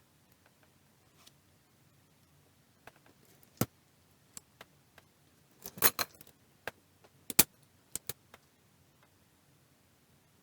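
Scattered sharp clicks and light taps of small metal hand tools being handled and set down on a workbench, with a brief rattling cluster about six seconds in and the sharpest tick a little after seven seconds.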